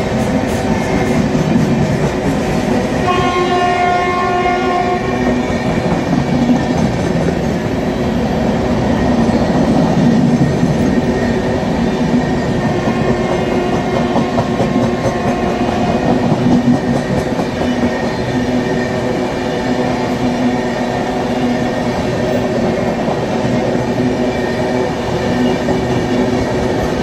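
Indian Railways express of LHB passenger coaches passing close at speed: a steady, loud rush of wheels on rails. A train horn sounds for about two seconds, around three seconds in.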